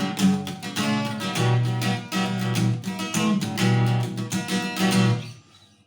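Acoustic guitar strummed in a quick, rhythmic pattern through a chord passage, with the first string barely played. The strumming stops about five and a half seconds in.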